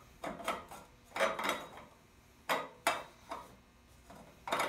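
Steel exhaust header pipe clinking and knocking against the exhaust studs and port of a Predator 212 small engine, about eight short metallic knocks, as it is worked into place. The pipe's flange holes won't line up with the studs.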